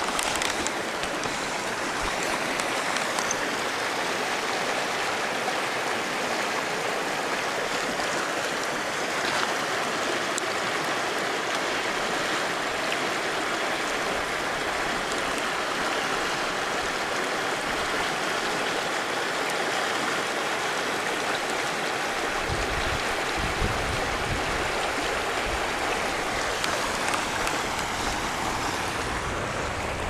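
Shallow creek water flowing over rocks, a steady rushing. About two-thirds of the way in, a low rumble joins it.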